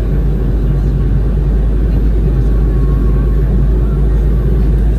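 Steady, loud rumble of an airliner on its landing approach, engine and airflow noise heavy in the low end, heard from inside the cabin.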